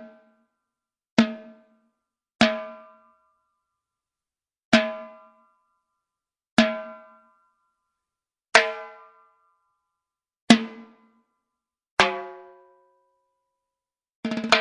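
Timbales struck one hit at a time, about every two seconds: each sharp, ringing drum tone dies away within about half a second before the next. Near the end comes a quick cluster of hits.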